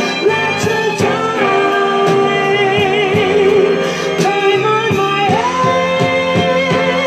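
Soul ballad music with no lyrics sung: held, wavering melody notes, voices or strings, over a steady drum beat.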